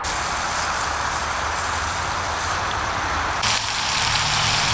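Beef cubes sizzling steadily as they brown in a small pot over a canister gas stove, with a low rumble of freeway traffic underneath.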